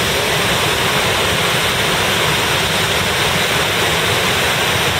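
Loud, steady rush of whitewater from the river and its waterfalls.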